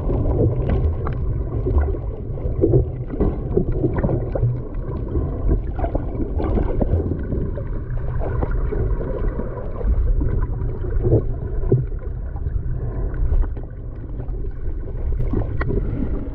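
Muffled underwater sound from a camera submerged while snorkeling: a constant churning low rumble of moving water, with bubbling and scattered sharp clicks.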